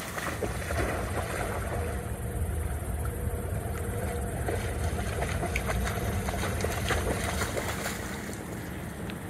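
A yellow Labrador splashing and wading through a shallow creek, fetching a stick and running back out, with irregular splashes over a steady wind rumble on the microphone.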